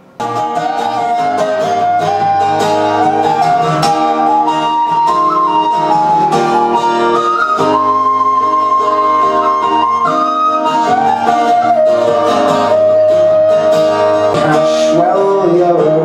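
Tin whistle playing a melody with quick ornamented turns, over a strummed acoustic guitar accompaniment; the music cuts in abruptly right at the start.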